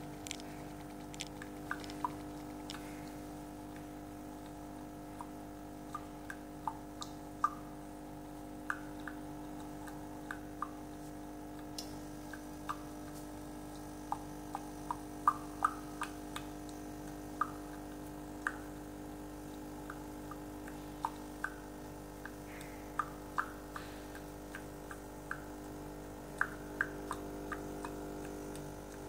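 Irregular drips from a DeLonghi EC145 espresso machine, a sharp tick every second or so, over a steady hum.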